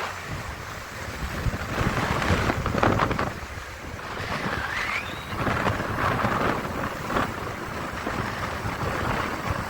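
Motorcycle on the move: wind buffeting the microphone in gusts over the running engine and road noise.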